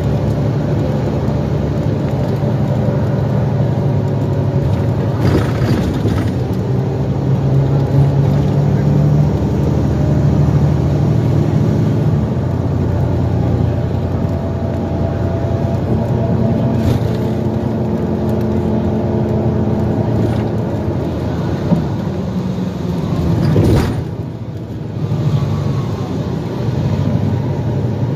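A 2012 NABI 416.15 transit bus under way, its diesel engine running and shifting in pitch as the bus speeds up and slows. A few sharp knocks and rattles from the bus body come through, the loudest near the end.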